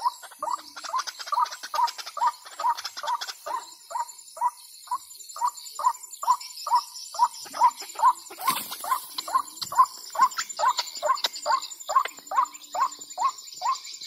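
White-breasted waterhen (ruak-ruak) calls played from an electronic bird-caller speaker: a short note repeated evenly about twice a second, used as a lure. Insects trill faintly in the background, and there is a brief rustle about halfway through.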